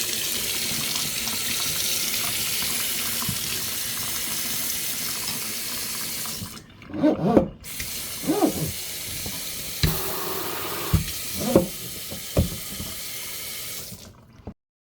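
Water running from a newly installed kitchen sink faucet into the sink, a steady rush that stops briefly about halfway, then runs again and cuts off suddenly near the end. A few short pitched sounds come in over it around the middle.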